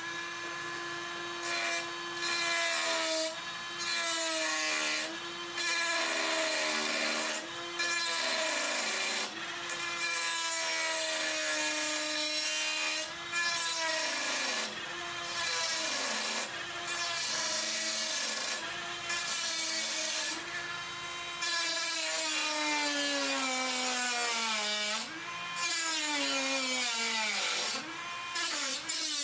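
Dremel rotary tool running and cutting into the PC case. Its motor whine sags in pitch each time it is pressed into the work and recovers between passes, with frequent short stretches of gritty grinding noise, and dips lowest about 25 seconds in.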